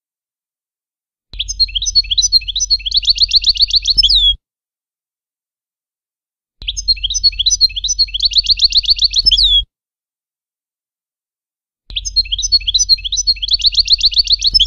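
European goldfinch song in the Levantine 'Shami' style, a tutor song meant for teaching young goldfinches: a fast twittering phrase of about three seconds, each ending in a downward slurred note. The same phrase repeats three times at even spacing with silent gaps, the pattern of a looped recording.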